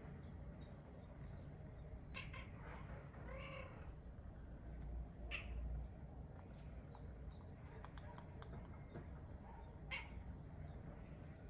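A domestic cat meows once, faintly, about three seconds in, with a few sharp clicks around it.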